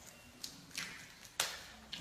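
Giant panda biting and chewing bamboo: a few crisp cracks and crunches as the stalk splits, about four in all, the loudest about one and a half seconds in.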